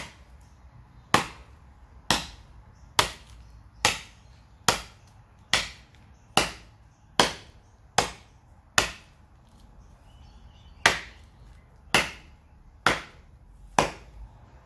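Kukri blade chopping into a dry, dead hardwood stump with light wrist-flick strikes: sharp woody chops about one a second, with a pause of about two seconds past the middle.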